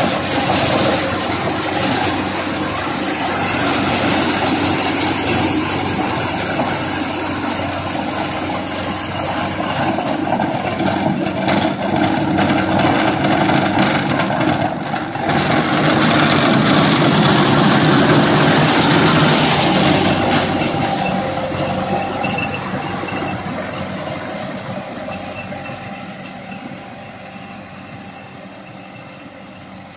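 Sonalika RX 90 4x4 tractor's diesel engine running under load while the Landforce mulcher it pulls shreds straw stubble, a dense, steady mechanical din. It is loudest a little past the middle and fades over the last several seconds as the tractor moves away.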